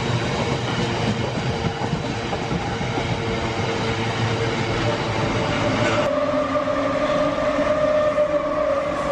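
A train running on the rails nearby, a continuous rumble. About six seconds in, a steady high whine sets in.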